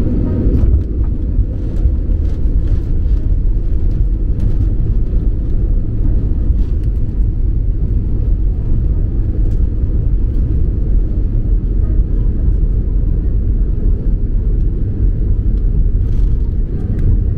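Jet airliner rolling fast along the runway, heard from inside the cabin: a loud, steady rumble of the engines in reverse thrust and the wheels on the runway during the landing roll. A few light rattles come from the cabin.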